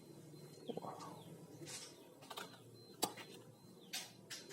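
Faint handling of plastic toy guns: a few light clicks and knocks, the sharpest about three seconds in.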